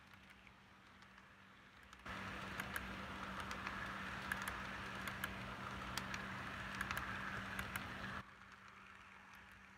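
Model train cars rolling past on the track: a steady rolling noise with irregular clicks from the wheels, much louder from about two seconds in to about eight seconds in, over a steady low hum.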